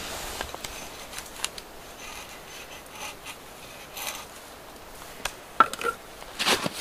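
Hatchet splitting kindling sticks: a handful of short, sharp knocks of the blade into and through thin wood, spread unevenly, with the loudest knock about five and a half seconds in.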